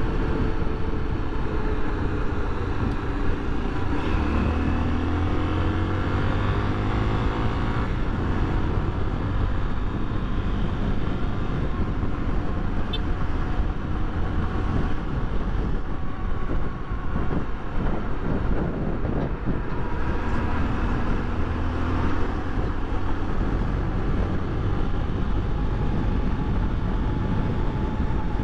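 Honda XRE300 motorcycle's single-cylinder four-stroke engine running under load as the bike accelerates to highway speed. Its note climbs about four seconds in and again around twenty seconds, over steady wind rumble on the microphone.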